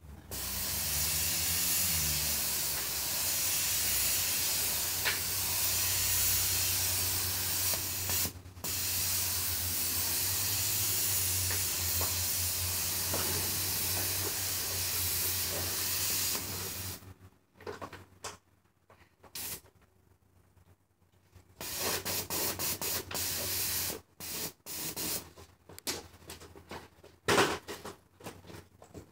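Paint spray gun hissing steadily for about sixteen seconds, with a low hum under it and one brief break about eight seconds in; it then stops, and a few short bursts and knocks follow.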